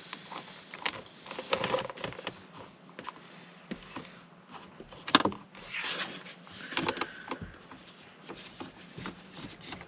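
Irregular metallic clicks and rattles of a wrench and bolt as the steering-wheel airbag bolt is tightened, with a sharp knock about five seconds in.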